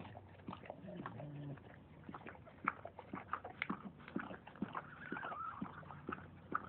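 Newborn puppies whimpering and squeaking, with one high wavering cry about five seconds in, among many short clicking sounds.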